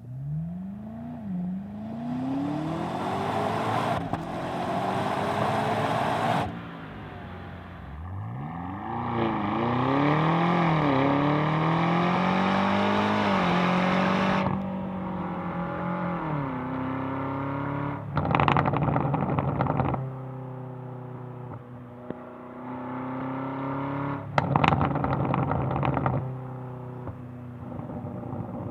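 BMW G90 M5's twin-turbo V8 exhaust being revved: two long climbs in pitch with a few wobbles, then a steadier high idle broken twice by short bursts of rapid crackling.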